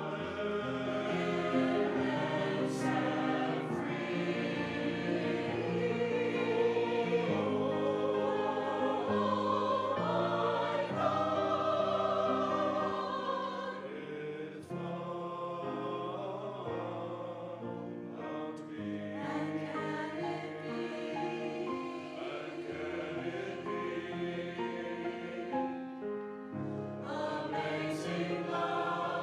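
A choir singing held, slowly moving chords, a little softer from about halfway through.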